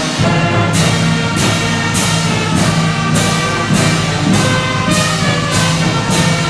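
Orchestral music with brass, over a steady percussive beat struck about every two-thirds of a second.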